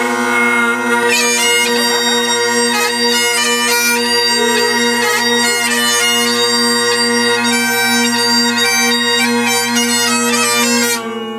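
Bagpipes playing a tune: a steady drone held under a chanter melody that moves from note to note, stopping near the end.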